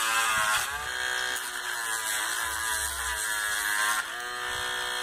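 Small handheld electric rotary tool with a sanding drum whining as it grinds down the plastic diving lip of a fishing lure, its pitch wavering up and down as the drum works against the plastic.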